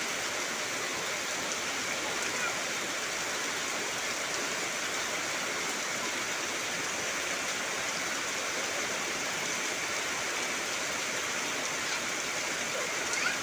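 Heavy rain falling steadily, a constant even hiss of rain.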